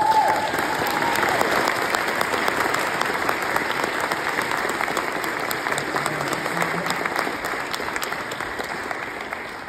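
Wedding congregation applauding and cheering, a dense patter of many hands clapping, with a short rising whoop right at the start. The applause thins a little near the end.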